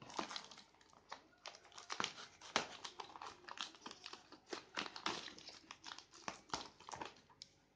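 Scissors snipping along the edge of a plastic postal mailer bag while the bag crinkles in the hands: an irregular run of sharp snips and rustles.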